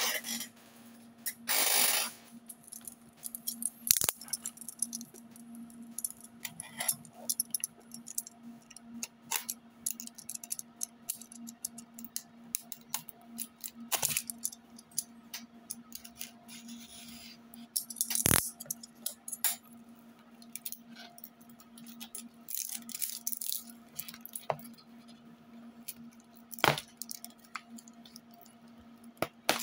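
A small sealed cardboard box being handled and picked at to open it: scattered clicks, taps and scrapes of fingers and nails on the cardboard and tape, with a couple of longer rustles. A steady low hum runs underneath.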